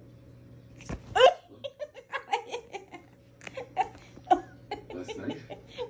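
A person giggling in short repeated bursts, starting about a second in, over a faint steady hum.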